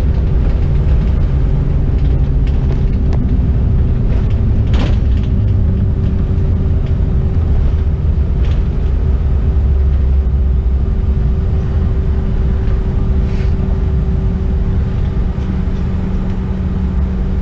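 Cabin noise of a CRJ-700 taxiing: its rear-mounted jet engines at idle give a steady low rumble with a constant hum, and a brief knock comes about five seconds in.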